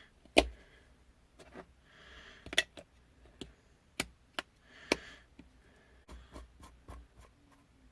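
Hands handling a homemade box mod and its batteries: scattered sharp clicks and knocks, loudest near the start and about four to five seconds in, with a couple of short soft hisses.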